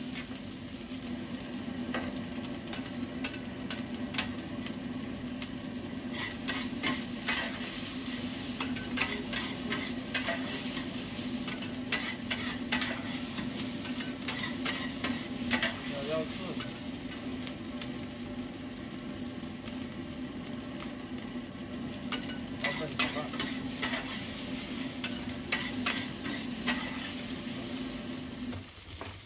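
Egg fried rice sizzling on a flat iron griddle while two metal spatulas scrape, toss and clack against the plate in quick, irregular strokes. A steady low hum runs underneath and stops near the end.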